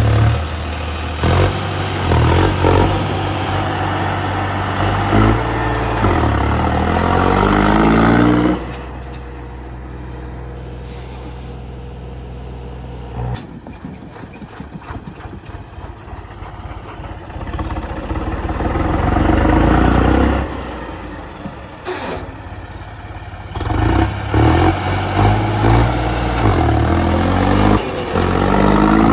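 Tractor diesel engine running loudly and being revved, its pitch climbing about six to eight seconds in. There is a second loud surge later, before it settles back to a steady run.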